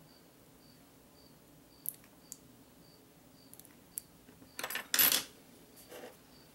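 Small scissors trimming a nail-polish sticker over a paper towel: a few light snips and clicks, then a louder brief scraping rustle about five seconds in.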